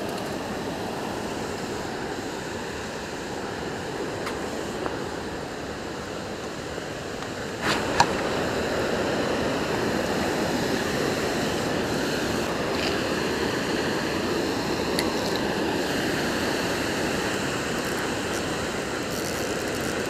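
Water rushing steadily over a low dam's weir, a continuous even wash of noise. About eight seconds in there is a sharp click and the rush gets a little louder.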